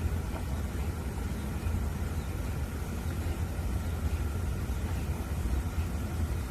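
MRI scanner running with a steady low hum and faint steady higher tones above it, without any knocking rhythm.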